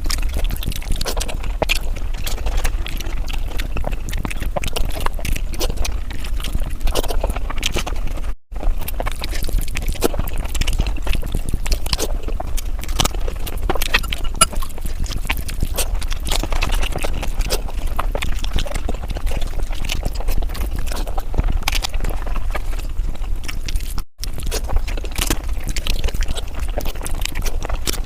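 Close-miked chewing and wet mouth smacking of someone eating egg curry with rice, a dense run of quick clicks and smacks over a steady low hum. It cuts out for an instant twice.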